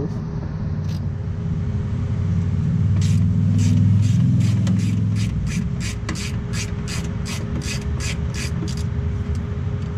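Ratchet with a 10 mm socket clicking in short, even strokes, about three a second, as it backs off a plastic fender-liner nut. The clicks start about three seconds in, over a steady low rumble.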